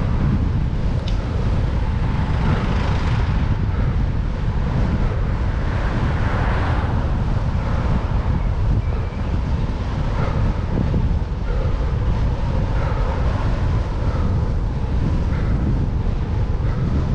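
Strong wind buffeting the microphone of a camera on a moving bicycle: a dense, steady low rumble, with swells of broader noise about two and six seconds in.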